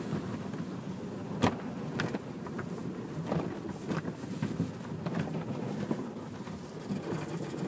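Automatic car wash cloth curtains and foam brushes slapping and rubbing over the windshield, heard from inside the car. There is one sharp knock about a second and a half in, then softer slaps.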